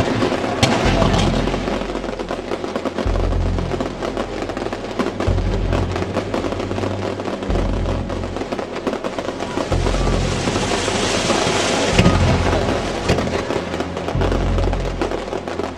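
Film soundtrack music with a deep, sustained bass line that changes note every couple of seconds, under a dense crackling, sputtering texture that swells brighter about two-thirds of the way through.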